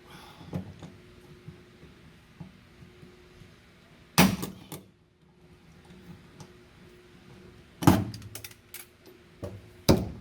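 Hand pop-rivet tool being worked on a steel seatbelt anchor plate: three sharp metallic snaps, about four seconds in, about eight seconds in and just before the end, with lighter clicks between them.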